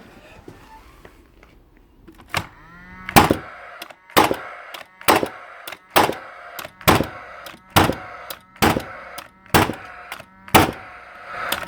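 Paslode IM350+ gas framing nailer firing repeatedly: about ten sharp shots, roughly one a second, with the combustion fan's whine running between them.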